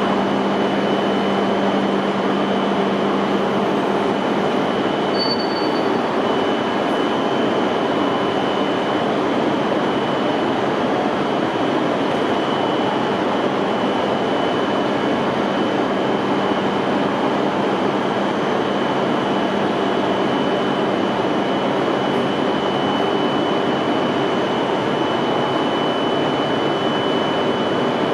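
Steady noise of an E5 series Shinkansen train with a thin, high, steady tone running through it; a low hum fades out about six seconds in.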